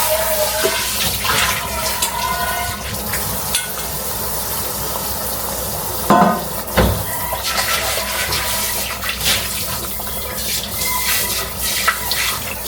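Water running steadily from a kitchen tap into a sink, with a couple of knocks about six seconds in.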